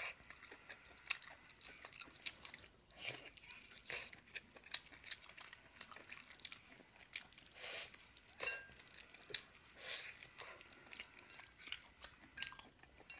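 Close-up eating sounds of braised pig's trotter: wet chewing and mouth smacks, with the skin and meat being torn apart by hand. The sounds come as irregular short smacks and clicks.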